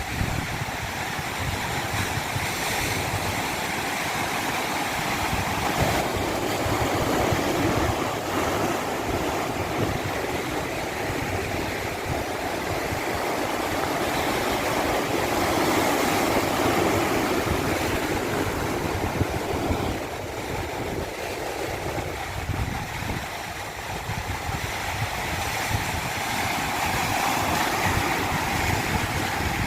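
Continuous rushing water, a steady wash of noise that swells for a stretch in the middle and eases off briefly about two-thirds of the way through.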